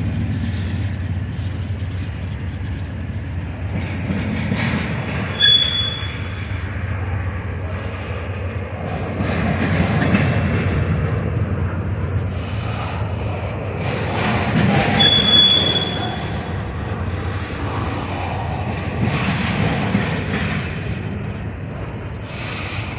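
Double-stack intermodal container train rolling past. Its wheels make a steady low rumble that swells every few seconds, with two brief high-pitched wheel squeals, about five and fifteen seconds in.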